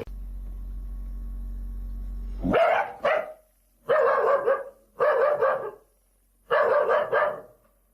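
A dog giving four drawn-out barks, each just under a second long with a wavering pitch, after a low steady hum in the first couple of seconds.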